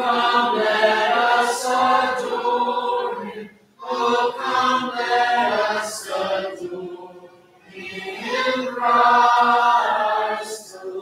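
Church congregation singing a hymn unaccompanied, men's and women's voices together, in three long phrases with a short break for breath about four and eight seconds in.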